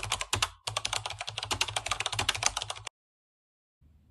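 Computer keyboard typing sound effect: a fast run of clicks that stops abruptly about three seconds in. A faint low hum begins near the end.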